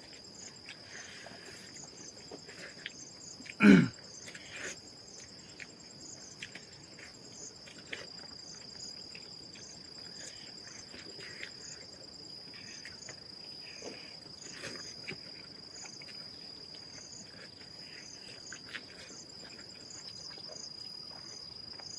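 Insects chirping steadily, a constant high trill with regular pulsed chirps above it. About four seconds in, a single short, loud sound like a brief voice or cough stands out.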